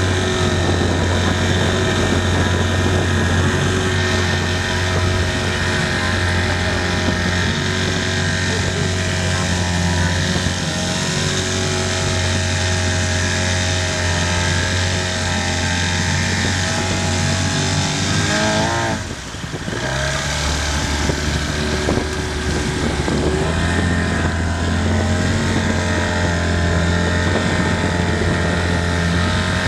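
Motorboat engine running steadily at speed. About two-thirds of the way through, its note rises briefly, drops away for a moment, and then picks up again.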